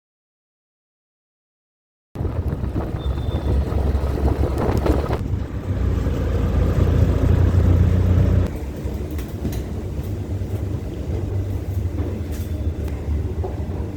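Silence for about two seconds, then steady vehicle road noise, a low rumble that shifts abruptly twice, about five and eight seconds in.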